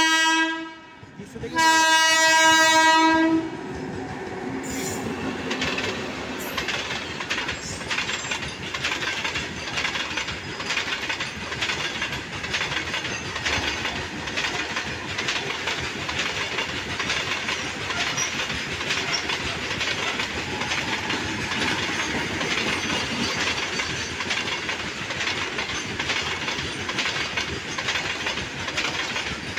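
Electric freight locomotive's horn sounding two blasts, the second ending about three seconds in. Then a long train of loaded open freight wagons rolls steadily past, its wheels clattering over the rail joints.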